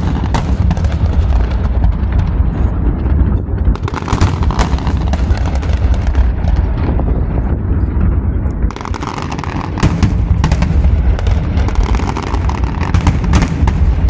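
Fireworks display: a rapid, irregular string of bangs and crackles over a continuous low rumble, easing briefly about nine seconds in.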